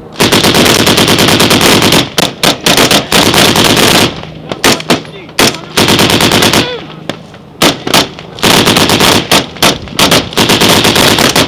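Automatic gunfire at very close range, fired in long sustained bursts: one run of about two seconds at the start, then broken bursts and single shots, a short lull, and another long run near the end.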